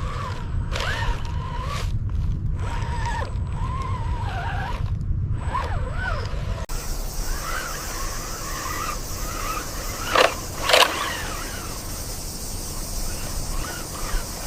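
Small electric motors of RC construction vehicles working, their whine wavering up and down in pitch over a low rumble. The sound changes abruptly about halfway, and two sharp knocks come about ten seconds in.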